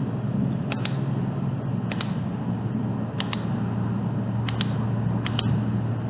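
Sharp clicks of a computer mouse, mostly in quick pairs about once a second, over a steady low hum.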